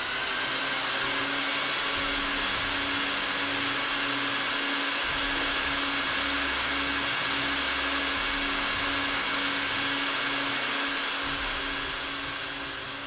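Suction rug-washing machine running steadily, a loud, even rushing with a steady hum under it, drawing wash water down through a flooded wool rug; it eases off near the end.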